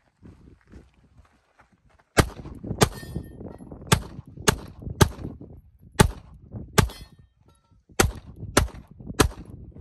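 Pistol shots fired at steel targets: about ten rounds, in singles and quick pairs, starting about two seconds in. Before the first shot there is only faint scuffing of movement.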